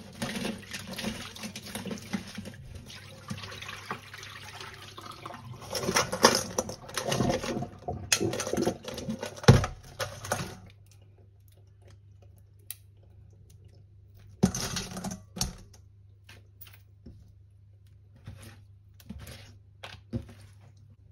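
Water running from a tap with knocks and splashes, stopping abruptly about ten seconds in; scattered light clicks and clinks follow.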